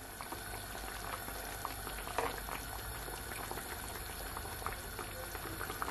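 Honey-garlic sauce simmering around salmon steaks in a skillet: a steady bubbling with many small pops.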